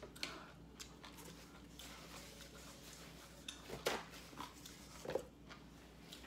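A person eating instant noodles close to the microphone: scattered soft mouth clicks and chewing sounds, with two louder short mouth sounds about four and five seconds in.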